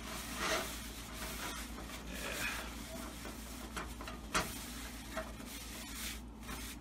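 Faint rubbing and scraping handling noises at a kitchen counter, with a sharp knock a little over four seconds in.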